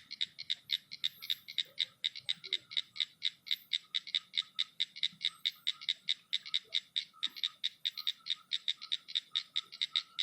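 Night animal calling: a rapid, even train of short, high clicking pulses, about six or seven a second, going on steadily.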